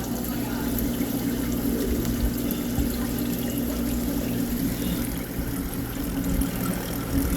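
Aquarium filtration running on the saltwater fish tanks: a steady trickle of water with a constant low hum from the pumps.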